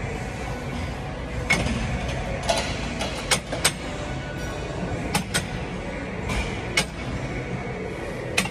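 Steady gym background noise with music playing, broken by several sharp, irregularly spaced knocks and clacks.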